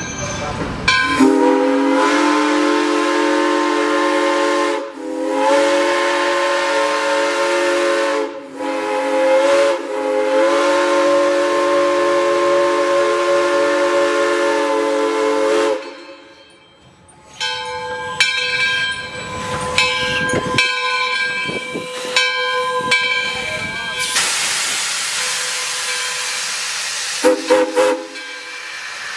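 Arcade & Attica #18, a 2-8-0 Consolidation steam locomotive, blowing its whistle, several notes at once, in a series of blasts that ends in one long blast held about six seconds as it rolls over a street crossing. The engine then passes close by with a steady hiss of steam and some clanking, a loud burst of steam hiss a few seconds from the end, and a short toot of the whistle.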